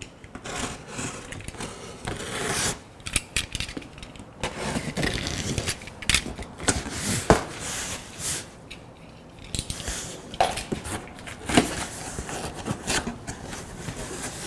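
Cardboard shipping box being opened by hand: the packing tape is broken and the flaps are scraped and pulled back, making irregular scrapes, rustles and sharp clicks.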